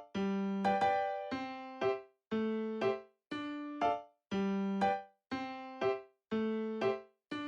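Background music: a light piano or electric-piano tune of short repeated notes in a steady, bouncy rhythm.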